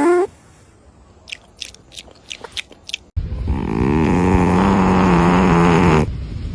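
A sleeping cat snoring: one long, steady snore of nearly three seconds begins about three seconds in. Before it comes a quiet stretch with a few faint clicks, and at the very start a short rising note cuts off.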